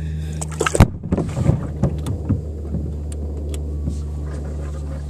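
A cluster of close knocks and rustling about a second in, the sound of the camera or things right beside it being handled. Under it runs a steady low hum.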